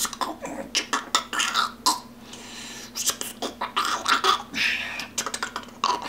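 A man breathing unsteadily while choked up and near tears: irregular short sniffs, sharp breaths and mouth noises, with no words.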